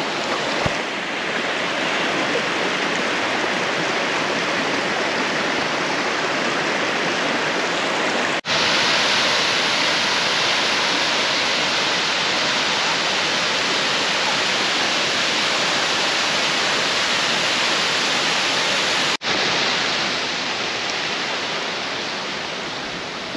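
Steady rush of falling water from a waterfall, broken off for an instant twice by edit cuts.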